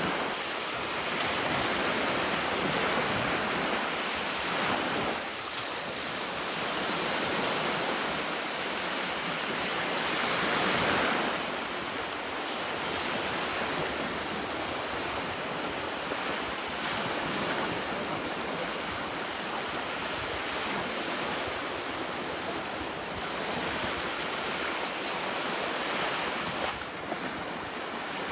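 Sea waves breaking and washing on a shore: a continuous surf hiss that swells and eases every few seconds, with its loudest surge about ten seconds in.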